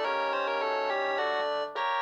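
Samsung SGH-T100 mobile phone playing a polyphonic ringtone: a synthesized melody with several notes sounding at once. It breaks off briefly near the end and a new phrase starts.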